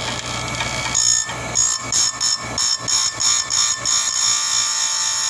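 Chain-sharpening grinder with a CBN wheel, its motor humming steadily while it grinds a saw-chain tooth in short light passes: from about a second in, a high-pitched grinding whine comes and goes about three times a second.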